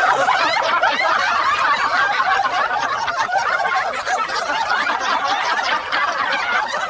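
Many overlapping high-pitched laughs and snickers forming a dense, steady chorus of laughter.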